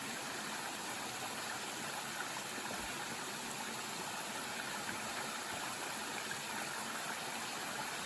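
Creek water pouring over a small fall: a steady rushing.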